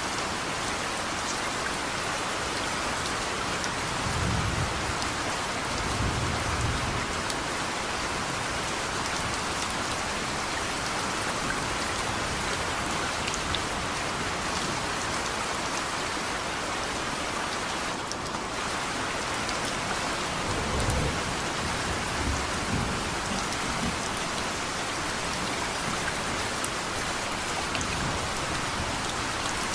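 Steady rain falling, with thunder rumbling about four seconds in and again about twenty seconds in.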